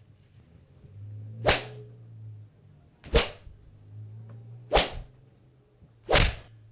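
Fight-scene punch and kick sound effects: four sharp, snappy hits about a second and a half apart, with a faint low hum between them.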